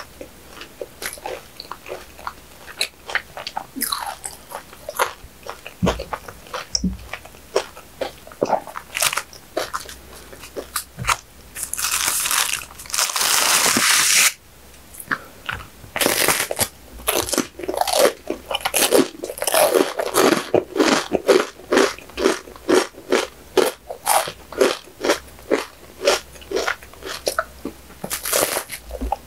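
Close-miked eating: soft chewing and mouth clicks, then a couple of seconds of rustling as the crisp condensed milk bread stick comes out of its wrapper, then rapid, loud crunching as the stick is bitten and chewed.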